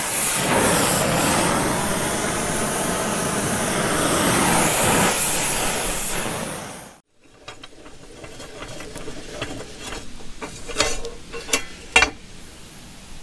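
Oxy-fuel torch flame hissing steadily as it heats a bent threaded plow hitch rod to straighten it; it fades out about seven seconds in. After that, quieter clicks and a few sharp metal knocks as the rusty rod and its coil spring are handled.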